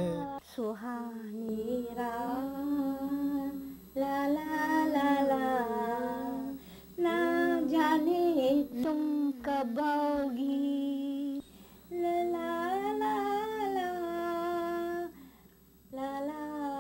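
A woman singing a Hindi film song unaccompanied, in phrases of long held notes with short breaks between them.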